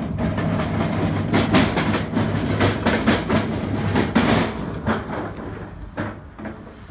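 Steel flatbed lumber cart rolling over rough asphalt, its wheels and frame clattering and rattling; the clatter eases off after about five seconds.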